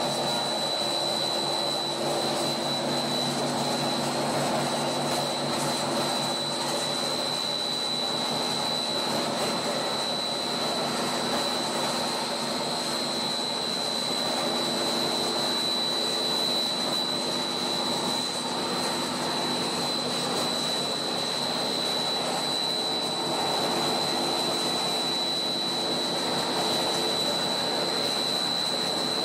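Monolayer blown film extrusion line running: a steady machine hum from the extruder drive and the air ring's cooling blower, with a constant high whine over it.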